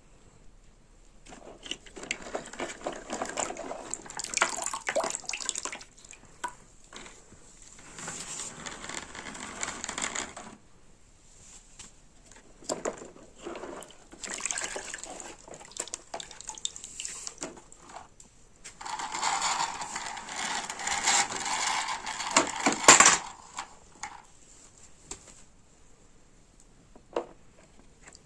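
Water pouring and splashing in four bursts of a few seconds each, with quieter gaps, as toy vehicles are washed in water.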